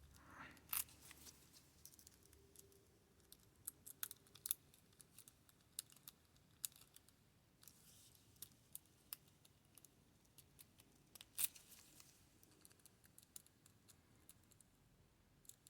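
Faint, irregular metal clicks and scratches of a lock pick and tension wrench working the pins of a six-pin Yale pin-tumbler lock. A few louder ticks stand out, one just under a second in and one about eleven seconds in.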